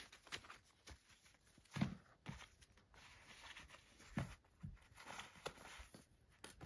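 Quiet handling of a cloth sewing kit on a wooden floor while it is unwrapped: faint rustling of fabric and tie strings, with a handful of soft taps and knocks.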